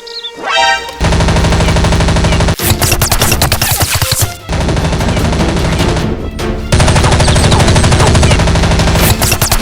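Several long bursts of rapid automatic gunfire, starting about a second in and broken by short gaps, with music underneath.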